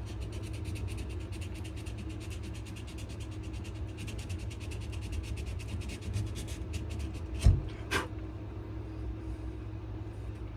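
Sandpaper rubbed rapidly back and forth over a wooden knife handle during rough sanding, in quick, even scratchy strokes over a steady low hum. A sharp knock sounds about two-thirds of the way through, followed by a lighter one.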